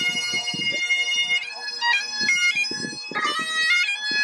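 Great Highland bagpipes playing: the drones sound under one long held chanter note, and then a tune begins with quickly changing notes about a second and a half in.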